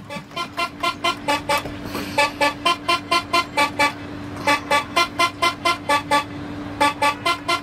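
Toy-orchestra music on plastic toy horns: rapid, evenly spaced short toots, about five a second, in runs broken by brief pauses, over a steady low held note.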